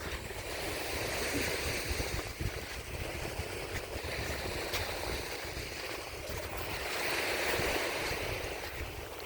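Sea waves washing onto the beach, surging up roughly every three seconds, with wind buffeting the microphone as a gusty low rumble.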